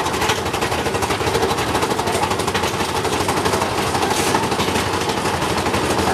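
Big Thunder Mountain Railroad mine-train roller coaster rattling along its track, a fast, continuous clatter of many rapid knocks.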